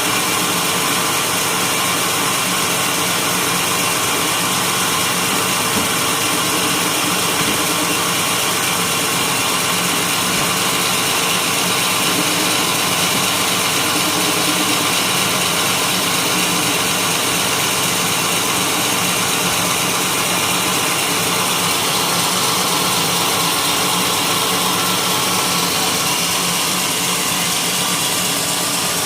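Sawmill machinery running steadily, a constant loud mechanical drone with a high hiss, while white teak is being sawn into beams.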